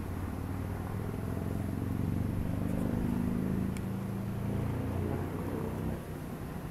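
An engine passing by, its steady drone building up, loudest midway, then fading about six seconds in.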